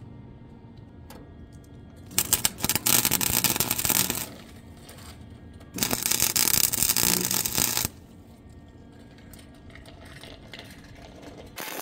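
Wire-feed welder arc crackling as it welds a thin sheet-steel floor patch panel, in two bursts of about two seconds each with a short pause between.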